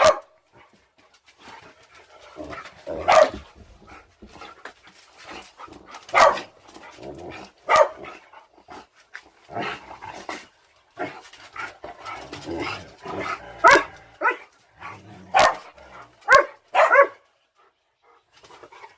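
A dog barking in single short barks, about nine spread unevenly, with a quick run of three near the end.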